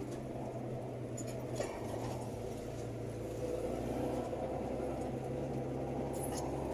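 Steady low engine drone and rumble heard from inside the cab of a heavy vehicle driving on a dirt road, with a few faint light rattles.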